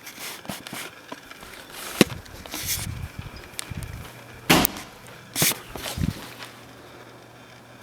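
A handful of irregular knocks and thumps, the loudest a double thump about halfway through, over a faint low hum.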